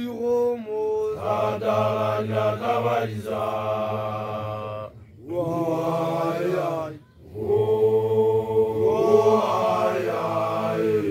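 A group of Basotho initiation graduates (makoloane) chanting together in long held phrases over a low drone of men's voices, with two short breaks for breath. A single voice leads in alone at the start before the group joins.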